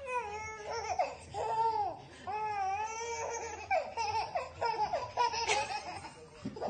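A baby laughing and squealing, a run of short high-pitched laughs and shrieks.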